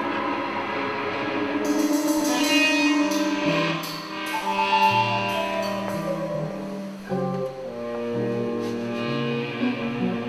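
Live flamenco-fusion band music: held melodic notes over a moving bass line, with sharp percussive taps coming in about two seconds in.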